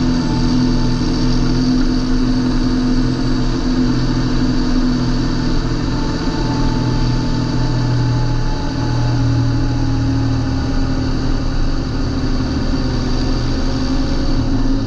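John Deere 8320 tractor's six-cylinder diesel engine running steadily at a fairly constant speed, its pitch drifting only slightly.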